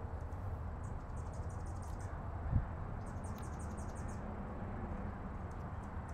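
Outdoor ambience: a steady low rumble with two runs of rapid, high-pitched chirping, about eight chirps a second. A single dull thump comes about two and a half seconds in.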